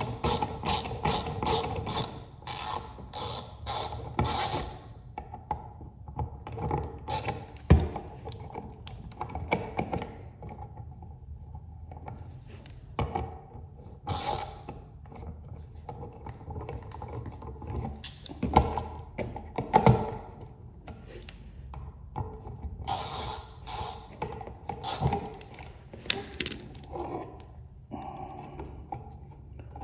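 Hand tools working on a wall outlet: a quick even run of ratchet-like clicks, about three a second, for the first four seconds or so, then scattered clicks and a few sharper knocks as the screws and outlet are worked loose.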